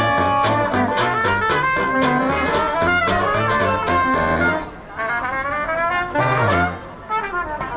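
Background music: brass-led jazz with trumpet and trombone over a pulsing bass line, dipping briefly about five seconds in.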